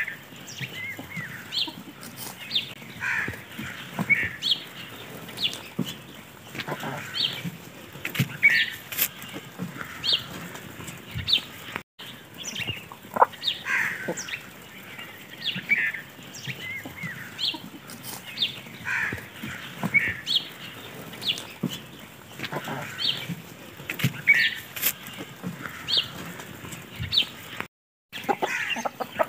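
A flock of hens clucking while they feed, with short calls coming irregularly and overlapping, and scattered sharp clicks among them. The sound drops out briefly twice.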